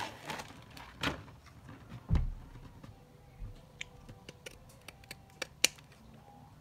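Pinking (zigzag) scissors snipping an oval out of craft vinyl: a string of small, sharp clicks, with one dull thump about two seconds in.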